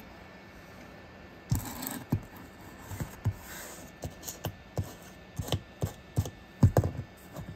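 Hot soldering-iron tip tapping and scraping on a plastic fuel tank while it works a melted LDPE patch into a puncture. It makes a run of about fifteen irregular sharp clicks and light knocks, with a brief scraping hiss about one and a half seconds in. The loudest clicks come near the end.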